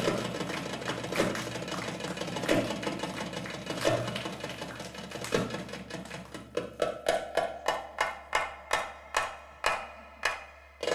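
Goblet drum (darbuka) played by hand for a belly-dance drum solo. It begins with fast, dense rolls, then from about six seconds in changes to single, evenly spaced ringing strikes about three a second.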